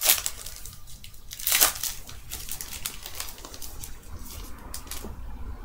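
Trading-card pack wrapper crinkling and football cards being handled and flicked through, with two louder crackles about a second and a half apart near the start, then lighter clicks and rustles that die down near the end.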